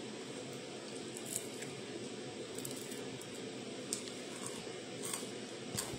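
Quiet room noise, a steady low hiss, with a few faint, small clicks scattered through it.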